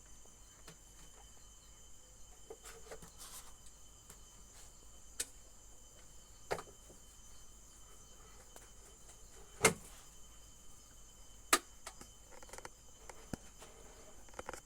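Scattered sharp clicks and knocks, about five, from handling an electric kettle and its base during testing, the two loudest in the second half, over a faint steady high-pitched hiss.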